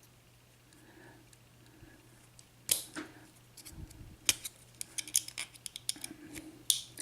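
Metal clicks of a tool prying the retaining clip off an Abus padlock: one loud sharp snap about two and a half seconds in, then a run of smaller clicks and taps.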